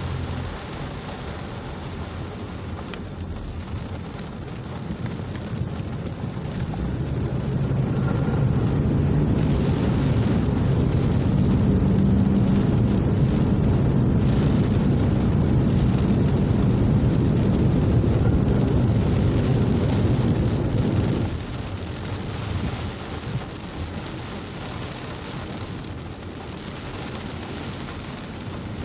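Heavy rain drumming on a car's windscreen and roof, heard from inside the car. A deeper, louder rumble builds up over the first third and stops suddenly about three quarters of the way through.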